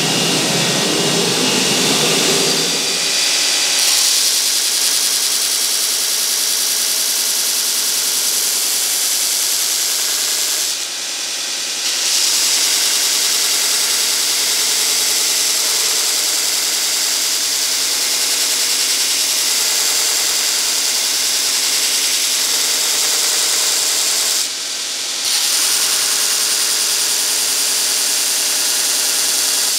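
Homemade 2x72 belt grinder running at full speed with a piece of steel plate held against the abrasive belt, giving a loud, steady grinding hiss over the motor's hum. The hiss drops out briefly twice, about 11 and 25 seconds in, as the work comes off the belt.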